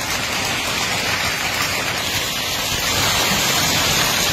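Hailstorm: hailstones and rain pelting the ground and a parked motorcycle, a steady, dense hiss.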